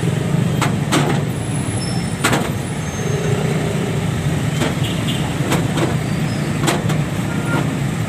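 Street traffic, with a motor vehicle's engine rumbling steadily nearby. Several short sharp clicks come through it.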